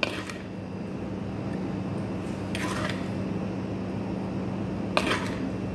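A steady low mechanical hum, with three brief scrapes and clicks of a metal spoon against a bamboo bowl as fried aubergine pieces are spooned in: one at the start, one just under three seconds in, and one near the end.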